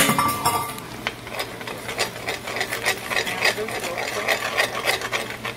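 Spatula scraping quickly against a skillet, scrambling beaten eggs into fried rice, in rapid repeated strokes. A light clink right at the start.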